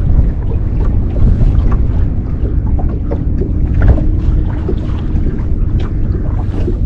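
Wind rumbling on the microphone, with small knocks and water noise from a fishing boat sitting on the river.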